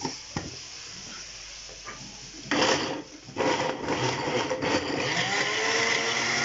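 Electric blender grinding cut tomatoes into a paste: after a couple of light clicks, the motor starts about two and a half seconds in, stops briefly, then starts again and runs steadily.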